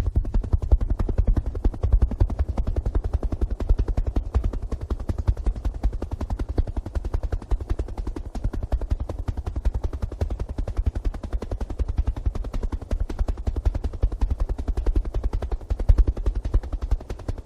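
Helicopter rotor chopping in a fast, even beat, heaviest in the low end, without a break.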